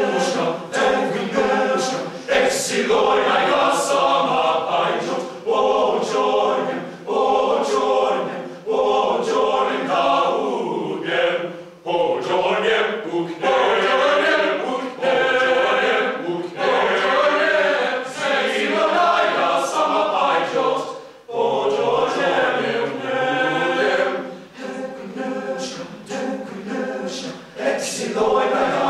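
Men's vocal ensemble of about a dozen voices singing a cappella in harmony, with brief breaks between phrases.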